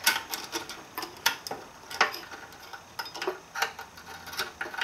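Irregular sharp metal clicks and clinks as the loose parts of a 42RH transmission accumulator are worked out of the transmission case by hand, its snap ring already off.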